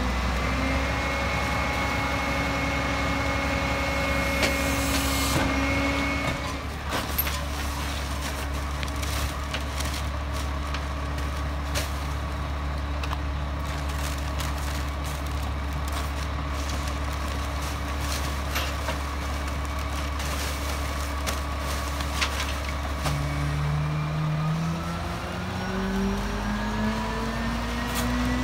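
Rear-loader garbage truck's diesel engine idling steadily, with scattered knocks and thuds as heavy yard-waste bags land in the hopper. A higher held tone over the engine cuts off about six seconds in. In the last five seconds the engine revs up with a rising pitch as it throttles up to run the packer.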